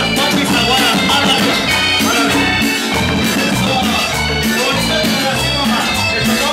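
Latin dance music with a steady pulsing bass beat, played loudly over a nightclub sound system.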